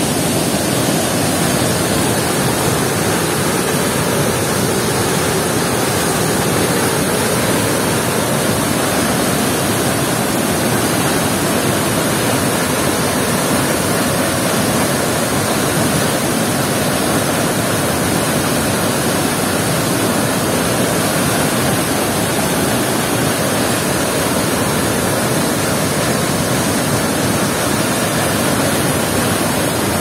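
A waterfall in flood, swollen by seasonal rains, pouring over rocks: a loud, steady rush of water.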